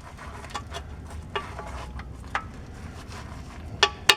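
Irregular metallic clinks and taps of a pry bar working a rusted shift lever arm off the transmission's shift shaft, with the loudest two near the end as the arm lets go. A low steady hum runs underneath.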